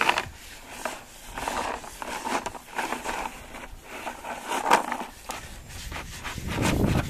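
A plastic jug noisemaker rattling, crinkling and knocking irregularly as it is shaken and rubbed against a saddled horse, with a couple of sharper knocks, one at the start and one about two-thirds of the way in.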